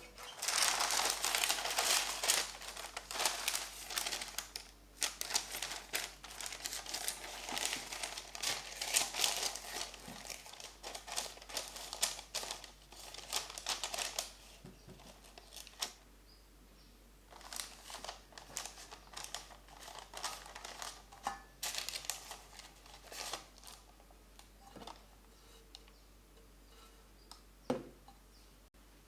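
Baking parchment paper crinkling and rustling as it is pressed into a loaf pan. The handling is dense for the first fifteen seconds or so, then comes in scattered rustles, with a single soft tap near the end.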